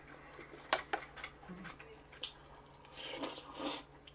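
Spoon and chopsticks clicking against bowls and the hot-pot dish as food is scooped, a handful of short sharp clicks spread irregularly, with soft eating sounds in between.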